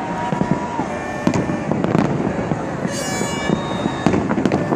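Fireworks display: rapid bangs and crackles of aerial shells and fountains bursting overhead, with a shrill whistle about three seconds in.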